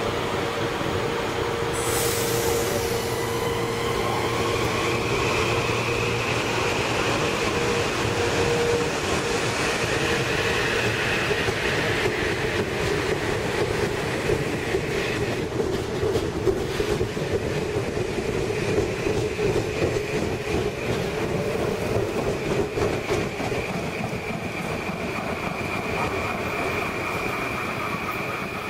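Metro-North M8 electric multiple-unit train pulling out, with a steady electric whine and a higher whine that rises slightly. Through the middle there is a run of repeated knocks from the wheels, which the uploader puts down to flat wheels.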